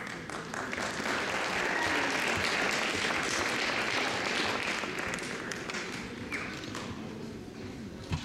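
Audience applauding, building over the first couple of seconds and dying away toward the end.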